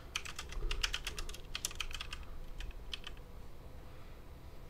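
Typing on a computer keyboard: a quick run of keystrokes for about three seconds, then it stops.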